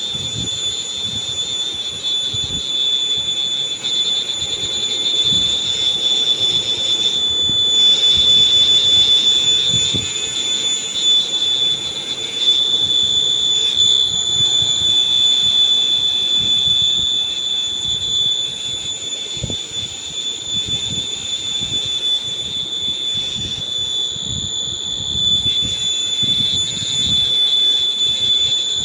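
A steady, high-pitched whine that holds one pitch, over an irregular low rattling and clicking.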